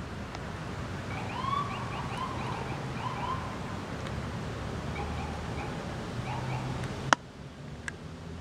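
Steady outdoor background noise with a low hum, over which a distant high call rises and falls in short repeated swoops, in a group about a second in and again around five seconds. A single sharp click about seven seconds in, after which the background is quieter.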